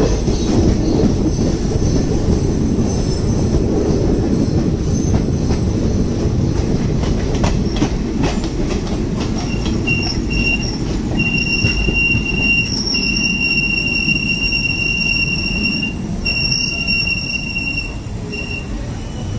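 Express train coaches running on the track, heard from an open coach door: a steady rumble with clicks over the rail joints. About halfway in, a high, steady squeal sets in. It cuts out and comes back several times while the rumble slowly eases as the train slows into a station.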